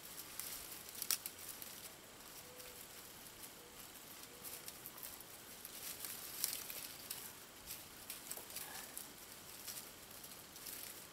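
Faint rustling and scattered light clicks from chain-link fencing being handled and tied together at its bottom edge.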